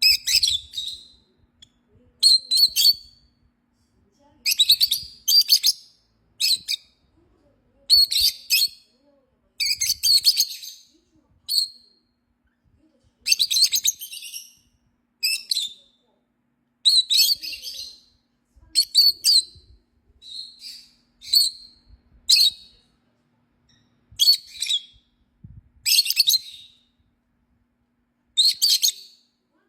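Lovebirds chirping in short bursts of rapid high chirps, about one burst every one to two seconds, with silence between.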